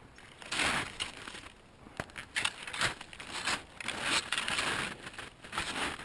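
Fischer cross-country skis sliding and crunching through soft snow on a downhill run, in uneven swishes with a few sharp clicks.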